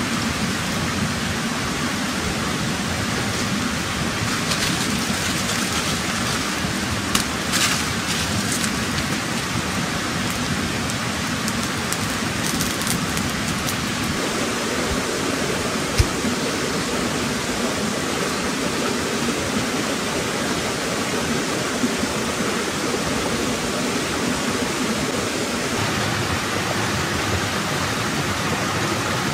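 Steady rushing hiss of flowing stream water, with a few sharp crackles from a wood campfire about seven seconds in and a single sharp pop around the middle.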